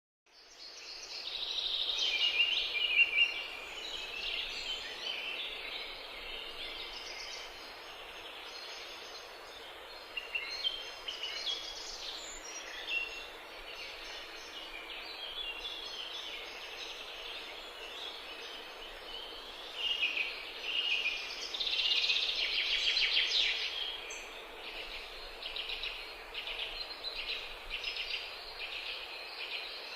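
Several songbirds singing at once, a dense chorus of short high chirps and trills over a faint steady hiss, fading in at the start.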